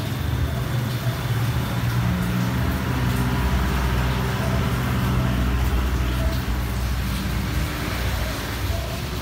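Kawasaki KLX150BF's air-cooled single-cylinder four-stroke engine idling steadily.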